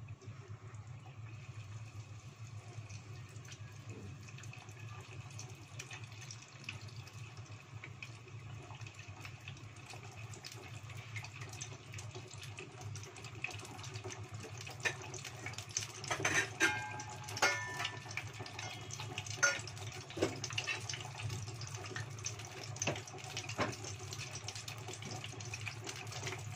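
Sempol tahu (egg-dipped tofu skewers) deep-frying in a small pot of hot oil: a steady sizzle that becomes busier with crackles and pops from about halfway through as pieces go into the oil, with a few sharp clicks around two-thirds of the way.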